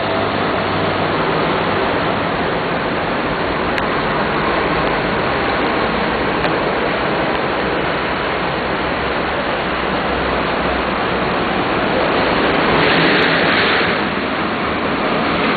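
Steady street traffic noise, with one vehicle passing louder about twelve to fourteen seconds in.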